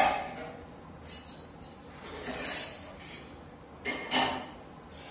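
A cloth wiping marker writing off a whiteboard, in a few short rubbing strokes about a second apart; the loudest stroke comes about four seconds in.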